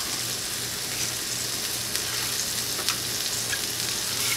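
Flour-dredged cube steaks sizzling steadily in hot olive oil in a cast iron skillet, with a few faint pops and crackles.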